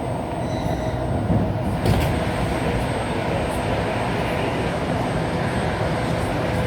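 Commuter electric train running, heard from inside the carriage: a steady rumble of wheels on rails with the hum of the running gear. There is a short knock about two seconds in.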